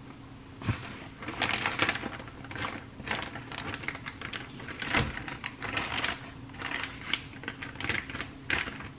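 Plastic zip-top bag crinkling and rustling in irregular bursts as it is squeezed and emptied over a frying pan, with a few sharp clicks.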